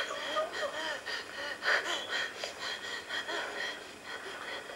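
Shaky, frightened breathing with small stifled gasps and whimpers, someone trying hard not to make a sound.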